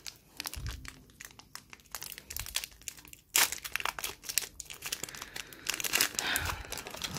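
Foil Pokémon booster pack wrapper crinkling as it is handled and opened, with light scattered crackles at first, a sharp loud crackle about three and a half seconds in, and denser crinkling near the end.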